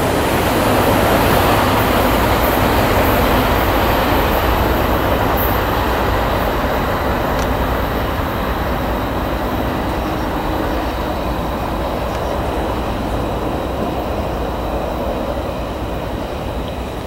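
CSX freight train's cars rolling past on the rails, a steady noise of wheels on track that slowly fades toward the end.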